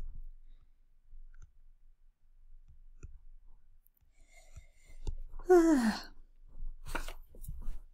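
A woman's short voiced sigh, falling in pitch, about five seconds in, amid faint scattered clicks and a brief breath near the end.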